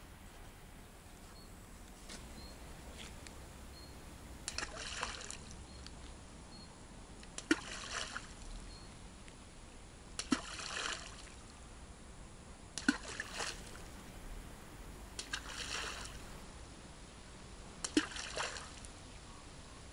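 Balls of heavily wetted groundbait thrown one after another into a river, each landing with a sharp plop and a short splash. There are six, about two and a half seconds apart, starting about five seconds in.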